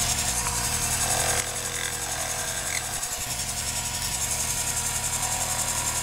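Small metal lathe turning the welded steel receiver of a Page-Lewis Model D .22 rifle: the spindle running with the cutting tool taking a pass, giving a steady hissing machining noise. It drops a little in loudness about a second and a half in.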